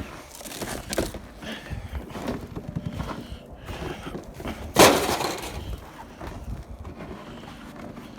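Aluminum scrap being handled and dropped, clattering, with one loud crash about five seconds in.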